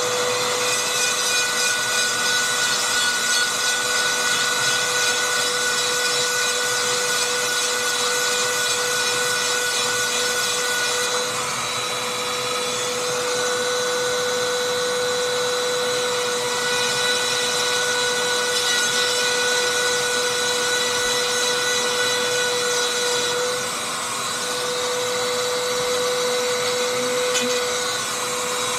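Dremel rotary tool running at a steady high speed with a steady whine, grinding chainsaw chain cutters with a sharpening stone. It dips briefly about three-quarters of the way through.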